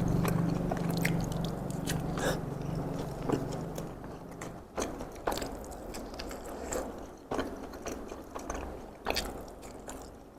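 Close-miked chewing of takoyaki: irregular wet mouth clicks and smacks. A low hum underneath stops about four and a half seconds in.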